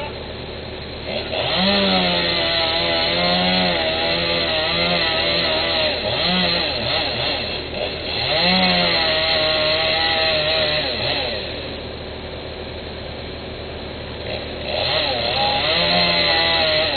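Two-stroke chainsaw revving up and cutting wood. Its pitch rises and sags as the chain works through the cut. It drops back to idle for a few seconds near the end of the cut, then revs up again.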